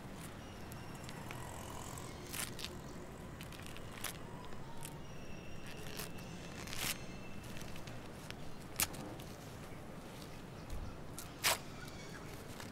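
Crumpled newspaper being handled, crinkling and crackling in sharp separate crackles a second or two apart.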